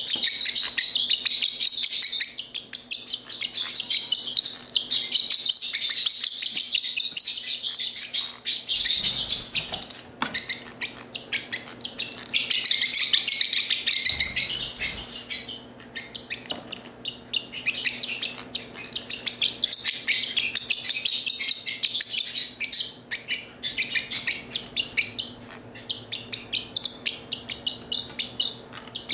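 Parrotlet chirping and chattering in rapid, high-pitched runs, louder in several long spells.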